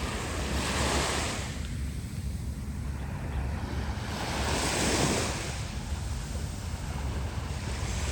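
Sea waves washing up on a beach, two swells about four seconds apart, over a steady low rumble of wind on the microphone.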